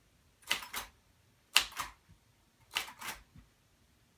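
Keys of a 1966 Royal Aristocrat manual typewriter struck slowly one at a time: three keystrokes about a second apart. Each is a sharp clack of the type bar followed by a lighter clack or two.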